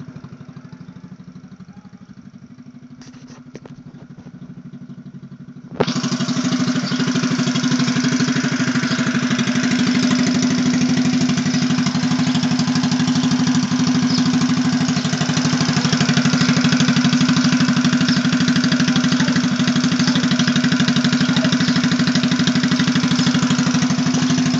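Small 90 cc single-cylinder motorcycle engine idling steadily. About six seconds in it suddenly becomes much louder and then holds steady.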